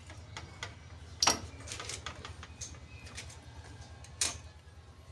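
Metal tools and parts being handled as a workpiece is set up on a machine: a scatter of sharp metallic clicks and knocks, two of them louder, about a second in and near the end, over a low steady hum.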